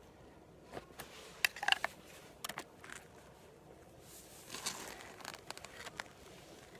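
Scattered small clicks, taps and rustling, in two clusters a second or two in and again about two seconds later.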